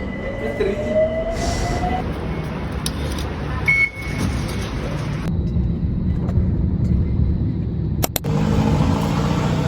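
Low, steady rumble of a moving vehicle, broken by a few abrupt cuts, with a brief rising whine near the start.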